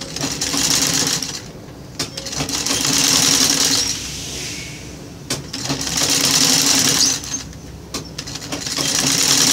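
Old black sewing machine stitching fabric ruffles onto a burlap rug base. It runs in four bursts of a second or two each, stopping briefly between them, with a few sharp clicks in the pauses.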